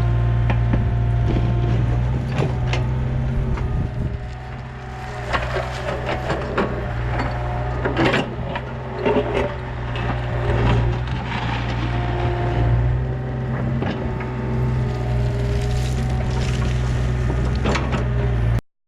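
Yanmar B37 mini excavator at work with its dirt bucket: the diesel engine runs steadily under a hydraulic whine that changes pitch as the controls are worked, with clanks and knocks from the bucket and linkage. The sound cuts off suddenly near the end.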